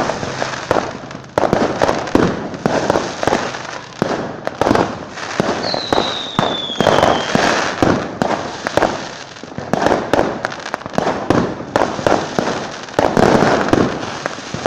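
Fireworks going off in dense, overlapping bangs and crackles, with a falling whistle about six seconds in.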